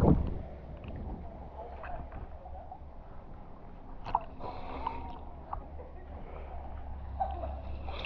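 A small boat on the water: a steady low rumble with water sloshing and gurgling against the hull. A loud thump or splash comes right at the start.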